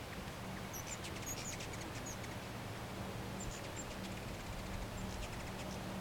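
Hummingbird's thin, high-pitched chips and squeaky chatter, in two bouts of quick notes: one about a second in and another past the halfway point. A faint low hum runs underneath.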